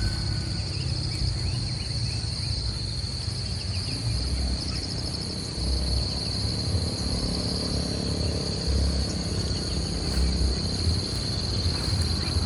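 A steady, high-pitched chorus of insects drones without a break, over a low, uneven rumble.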